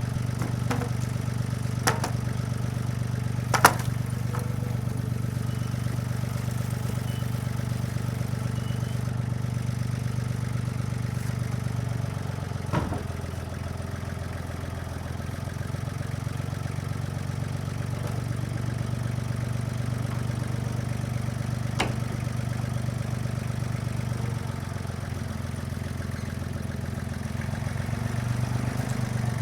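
Yanmar FX20D compact tractor's diesel engine running steadily, its drone easing a little partway through and again near the end. Several sharp knocks or clanks sound over it, the loudest a few seconds in.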